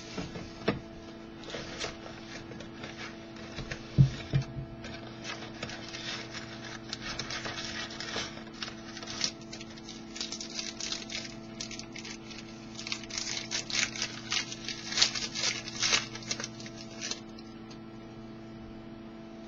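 Crinkling and rustling of trading-card pack wrappers and cardboard packaging being handled and torn open, with one knock about four seconds in. A steady electrical hum runs underneath. The handling stops a couple of seconds before the end.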